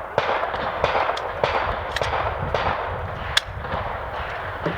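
Glock pistol firing a fast string of shots at steel plates, about two shots a second.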